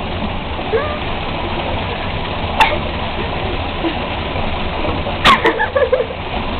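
Bathwater sloshing and splashing in a bubble-filled tub as a boxer puppy spins chasing his tail, over a steady rushing noise, with sharp splashes about two and a half and five seconds in.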